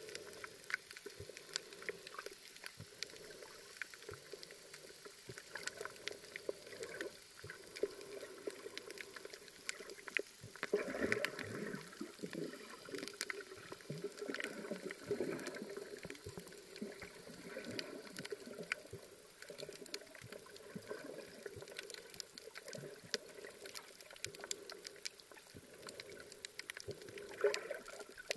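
Underwater sound heard through a camera held just below the surface while snorkelling over a coral reef: muffled water movement with gurgles, dotted throughout with many small sharp clicks. The gurgling swells louder about eleven seconds in and again just before the end.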